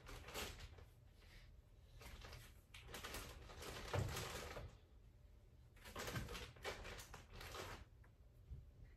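Faint rustling and handling noises as skeins of yarn are taken from a bag and set on shelves, with a soft knock about four seconds in.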